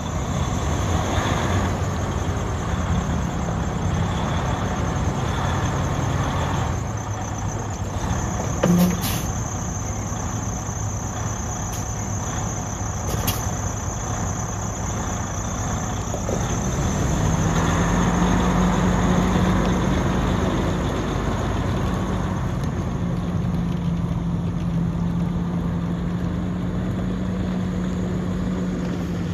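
Freightliner Cascadia Evolution semi-truck's diesel engine idling with a steady low hum that grows a little louder a bit past halfway. A brief knock sounds about nine seconds in.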